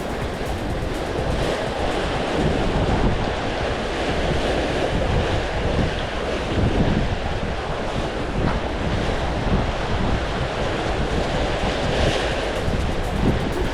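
Wind rumbling on the microphone over seawater washing and lapping against a slitted harbour seawall, steady with uneven gusts.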